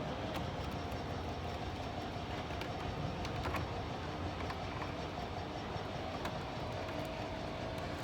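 Steady background rumble with a faint hum, broken by a few light clicks.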